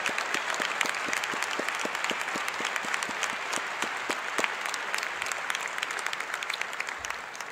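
An audience applauding, dense clapping that fades out near the end.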